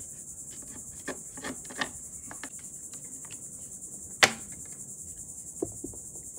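Steady high chirring of insects, with a few light knocks of wooden transom planks being handled and fitted by hand, the loudest a single sharp knock about four seconds in.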